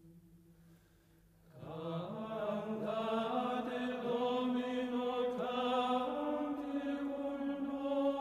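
Chant-like vocal music with long held notes: a low held note fades away, then about a second and a half in louder voices enter and hold slow, stepping notes.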